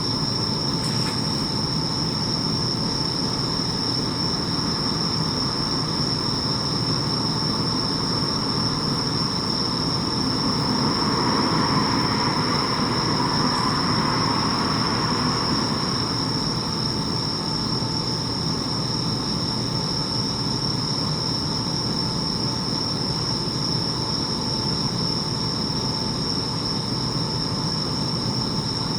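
Bell crickets (suzumushi) singing steadily in a high, continuous chorus over a low rumble of distant traffic, which swells for several seconds around the middle.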